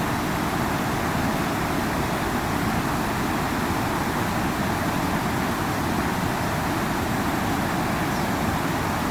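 River water rushing and flowing, a steady even noise that holds level throughout.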